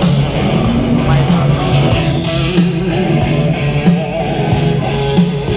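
Rock music with electric guitar and a steady beat, played loud through a custom bagger motorcycle's high-powered stereo system.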